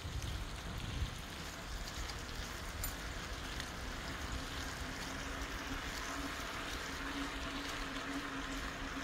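Steady outdoor noise with wind rumbling on the microphone for about the first second. A faint steady hum comes in about halfway through.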